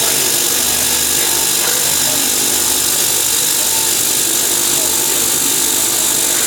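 Amada CNC 100 metal-cutting saw running steadily through a 4-inch round bar of T304 stainless steel. The sound is a constant loud hissing cutting noise over a low machine hum.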